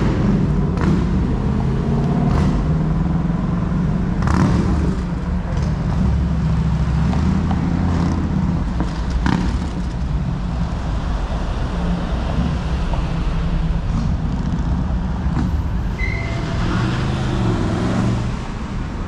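Street traffic: car engines running steadily as vehicles pass through a city intersection.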